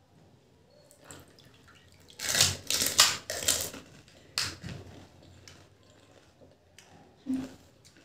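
Crunching and slurping of crisp golgappas (pani puri) filled with spiced water being eaten, loudest in a cluster about two to four seconds in, with single crunches a little later.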